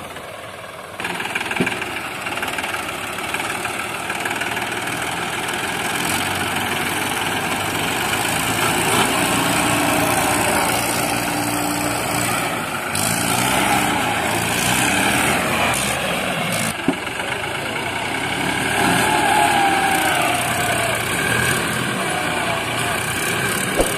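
Diesel tractor engines running steadily under load, as a Force Sanman 6000 tractor tows a stuck tractor out of deep paddy-field mud. The sound steps up in level about a second in.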